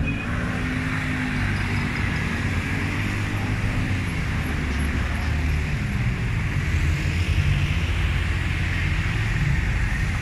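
Street traffic close by: motor vehicle engines running with a low steady hum over an even road noise.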